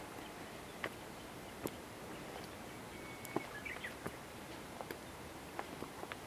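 Footsteps on a rocky dirt trail, heard as scattered sharp clicks and scuffs over a steady hiss. A short bird call comes about three seconds in: one brief flat whistle followed by a few quick chirps.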